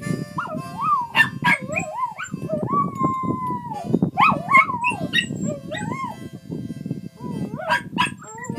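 A small dog howling in a string of wavering notes that rise and fall in pitch, with one long, nearly level howl from about two and a half to four seconds in, and more short howls near the end.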